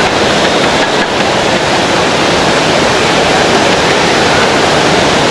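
Whitewater rapids rushing over rocks, a loud steady noise.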